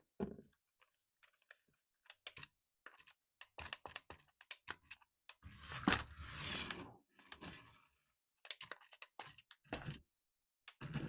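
Unboxing handling sounds: a string of small clicks and taps with louder rustling and crinkling of packaging, the loudest burst about six seconds in and another starting near the end.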